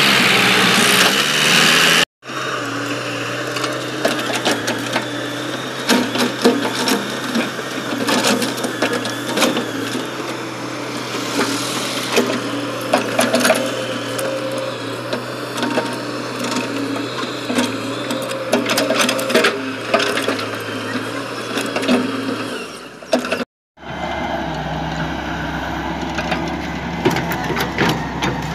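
Diesel engines of a wheeled excavator and a farm tractor running steadily, with frequent clanks and knocks from the excavator's bucket and arm as it digs earth and dumps it into a tractor trolley. The sound cuts out briefly twice, and over the last few seconds a lower, steadier engine note is heard.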